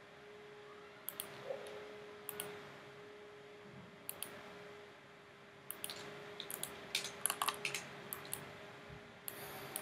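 Faint clicks from a computer mouse and keyboard: a few single clicks, then a denser run of clicks in the second half, over a faint steady hum.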